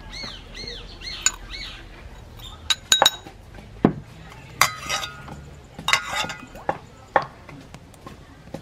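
A metal spoon clinking and tapping against a stainless steel mixing bowl: a string of sharp clinks over several seconds, some ringing briefly.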